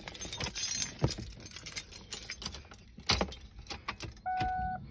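Car keys jangling and clicking as they are handled at the 2000 Ford Mustang's ignition, with the engine not yet running. Near the end, a single short electronic warning chime sounds from the car.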